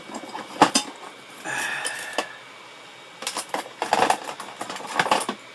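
Small metal tools clinking and clattering on a workbench as they are rummaged through, in short irregular clusters of sharp clicks.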